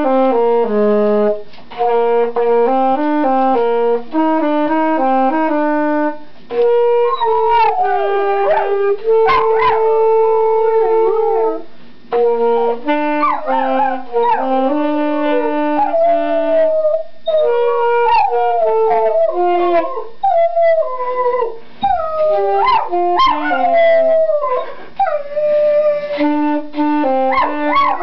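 A saxophone plays a melody of steady held notes, and a dog howls and yips along with it. The dog joins in about seven seconds in with wavering howls that slide up and down over the sax notes.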